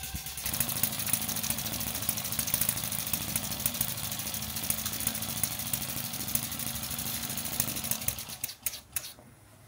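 Stirlingkit RW-BL1K miniature single-cylinder steam engine running on steam from its small boiler, with a rapid, even exhaust beat and mechanical clatter. The sound dies away about eight seconds in, with two sharp clicks.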